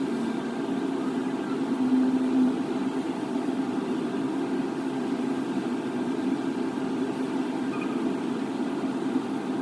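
Steady low machine hum with no breaks.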